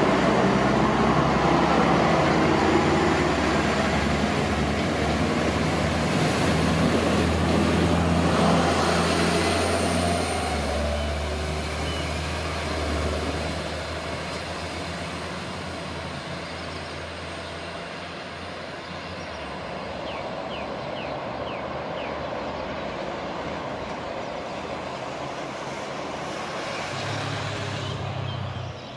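Regional diesel railcar running, heard from inside: a steady low engine hum and rolling noise that eases off and grows quieter about halfway through as the train slows for its stop, with a few faint brief squeaks.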